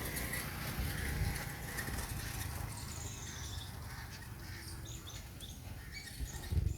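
Birds calling in scattered short, high chirps over a low steady rumble.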